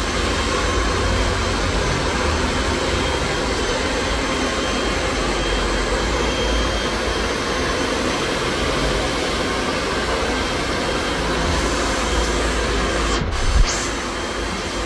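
Steady loud rushing noise of blown air, with a brief sharp knock about thirteen seconds in.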